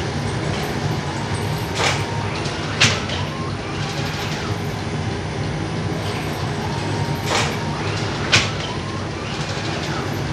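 Automated flatbread production line running with a steady mechanical hum. Twice, about five seconds apart, a short rasp is followed a second later by a sharp metallic clack, the rhythm of the machine's cycle as sheets of bread come off it.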